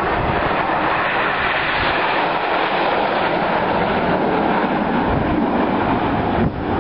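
Loud, steady roar of jet aircraft engines, with a brief dip near the end.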